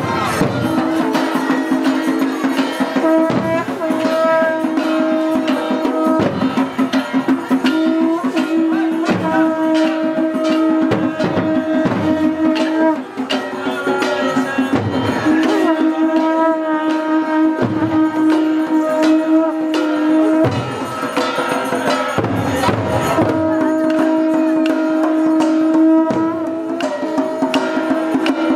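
A group of large double-headed barrel drums beaten with wooden sticks in a driving, continuous rhythm, with a melody in long held notes sounding over the drumming.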